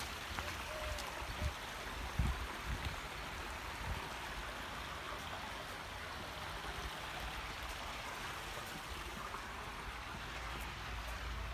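Flood-irrigation water flowing steadily, an even rushing sound, with a few low thumps in the first few seconds.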